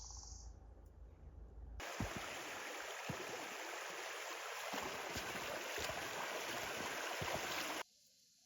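Steady rushing of flowing water, like a stream, that starts abruptly about two seconds in and cuts off suddenly near the end, with a few faint knocks over it.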